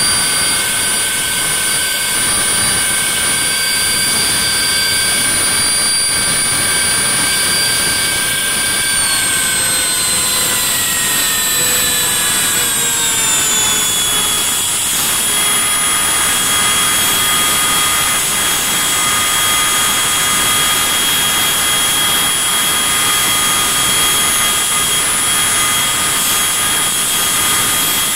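Blackburn Buccaneer's number 2 jet engine being blown over (turned on its starter without lighting up), giving a loud, steady whine. About nine seconds in, the pitch of the whine falls over some five seconds, then holds steady at a lower pitch.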